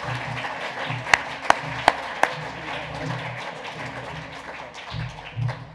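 Audience applauding over background music, with four sharp knocks standing out about a second in.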